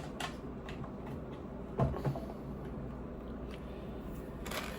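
Small plastic toy pieces being handled: a few light clicks and taps, with two louder knocks about two seconds in.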